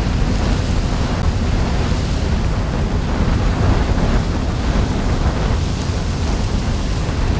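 Added volcanic-eruption sound effect: a steady deep rumble with a hissing noise above it, not the real sound of the eruption.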